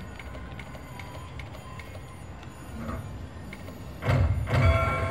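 Railroad Riches video slot machine spinning its reels over a low hum, with faint ticks as reels stop; about four seconds in, a sudden louder electronic sound with several held tones as symbols land.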